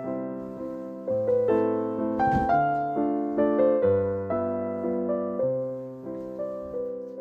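Gentle background piano music, single notes and chords struck in a slow, even rhythm and left to fade.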